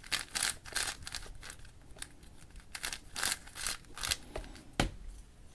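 Stickerless QiYi WuShuang 5x5 speed cube being turned and handled: irregular short plastic clacks and sliding sounds of the layers and pieces. A louder knock comes near the end.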